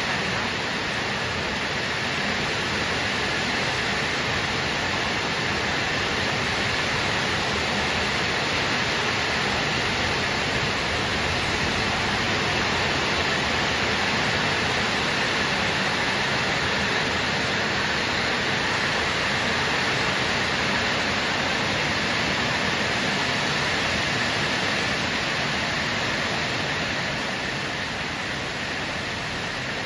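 Heavy rain pouring down in a dense, steady hiss, easing slightly near the end.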